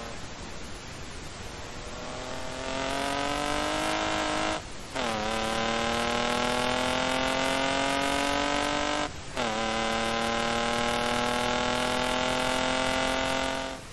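Engine-swapped BMW E28 accelerating hard through the gears, the engine note climbing steadily from about three seconds in. Two quick upshifts, about five and nine seconds in, each cut the sound for a moment and drop the pitch before it climbs again.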